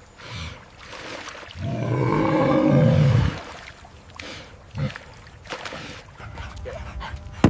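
A large animal's long, low-pitched call, starting about a second and a half in and lasting under two seconds, with fainter short animal sounds around it.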